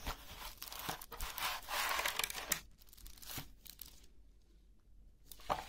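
Plastic bag crinkling and cardboard scraping as a boxed tombala game set is slid out and unpacked by hand. The rustling is busiest in the first two and a half seconds, goes quieter, and ends with a sharp rustle.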